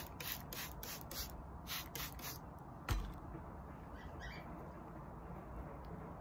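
Hand-pump spray bottle misting the hair: about ten quick sprays in the first two and a half seconds. A single sharp knock follows about three seconds in.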